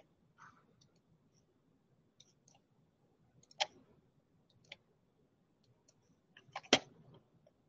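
Faint room tone with a few scattered sharp clicks: one about three and a half seconds in, another about a second later, and a louder cluster of clicks near the end.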